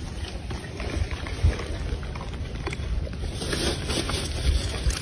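Wind rumbling on the microphone, with faint small splashes and knocks from a young macaque dabbling its hands in a plastic basin of water.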